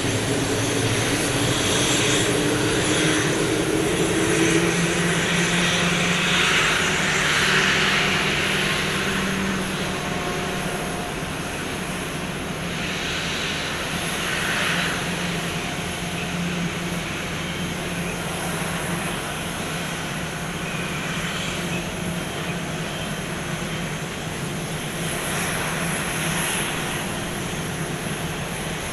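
Jet airliner engines running, a steady hum with swells of hiss; a whining tone falls slowly over the first few seconds.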